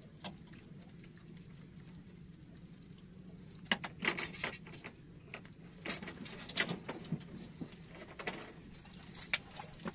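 Fishing tackle being handled as a rod is lifted out of its rack: a run of irregular sharp clicks and knocks, about ten in all, from about three and a half seconds in until near the end, over a faint steady low hum.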